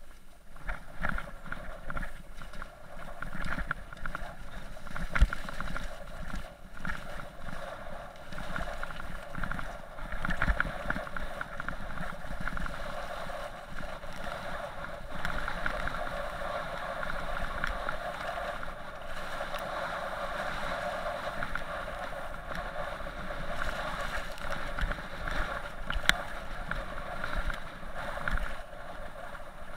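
Mountain bike riding over a rough track: a steady rattling and rumbling from the tyres and the bike's vibration, with wind on the microphone and a couple of sharper knocks from bumps, about five seconds in and near the end.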